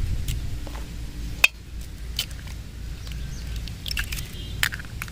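Raw eggs being cracked open by hand over a stainless steel bowl: a few sharp cracks and taps of shell, the loudest about a second and a half in, over a low steady rumble.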